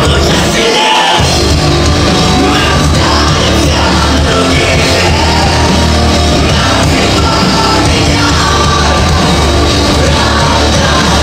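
Live alternative-metal band playing loud over a club PA, with a singer's vocals and shouts over heavy guitars and drums, heard from inside the crowd. The bass drops out for a moment about a second in.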